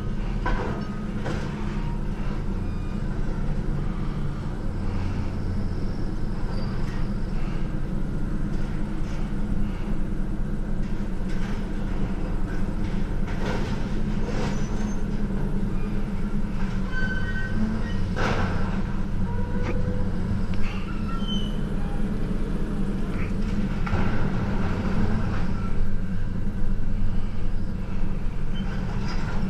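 A large engine running steadily at idle, a constant low hum, with scattered short metallic knocks and clanks.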